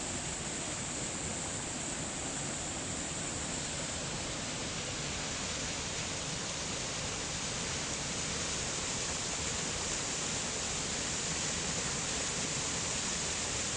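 Steady rushing of a waterfall on a mountain river.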